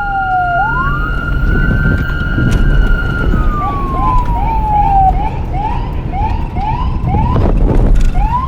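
Police car siren in traffic: a slow wail that falls, swoops back up and slides down again, then switches to rapid short rising yelps, about two a second. A steady siren tone holds for the first few seconds. A low traffic rumble runs under it, with a loud blast of noise near the end.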